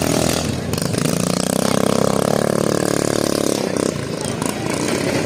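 Several scooter engines revving hard as they race over a dirt track. One engine's note climbs from about a second in and drops away near the end.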